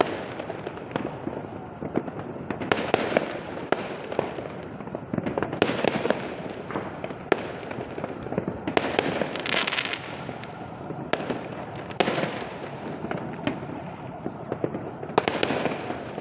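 Many fireworks and firecrackers going off at once: a continuous crackling rumble of distant bangs, with sharp, louder cracks every second or two, and a short hissing, crackling burst about nine seconds in.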